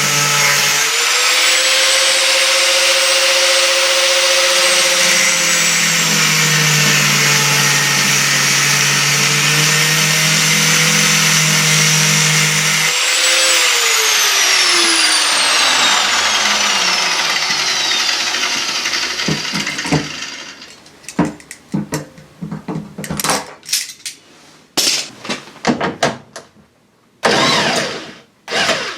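Angle grinder with a cutting disc running hard, cutting through a nut that spins on its bolt instead of undoing. About 13 seconds in it is switched off and winds down in a long falling whine, followed by scattered knocks and clatter of tools and metal.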